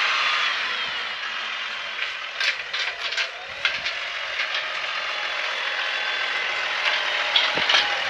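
Farm machinery running steadily, with a run of rattles and clicks about two to four seconds in and a few more near the end.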